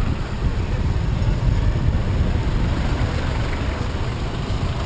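Motorcycle taxi (boda boda) riding through city traffic, heard from a camera mounted on the bike: a steady low rumble of engine and passing air.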